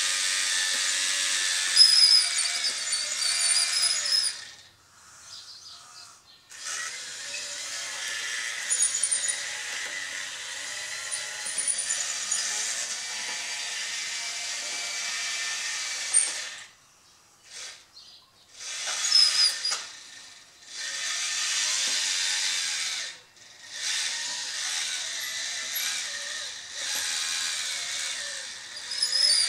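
The electric drive motors and gearboxes of an RC-converted Bruder CAT D11 model bulldozer whine as it drives and pushes into a sand pile. The whine stops and starts again several times.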